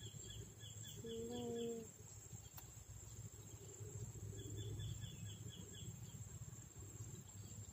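Faint outdoor insect chorus: a steady high-pitched drone throughout, with two runs of rapid chirps, one at the start and one near the middle. A brief soft voice sound comes about a second in.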